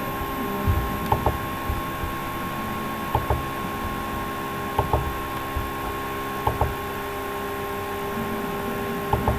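Computer mouse clicks in five quick pairs, a couple of seconds apart, over a steady electrical hum with a few held tones.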